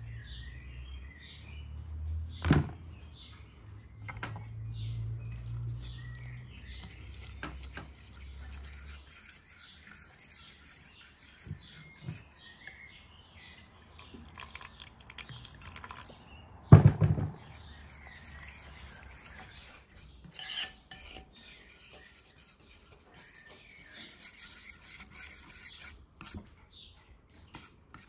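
Metal cutlery stirring a thick marinade in a ceramic bowl, clinking and scraping against its sides. Two sharper knocks stand out, one a couple of seconds in and a louder one about two-thirds of the way through.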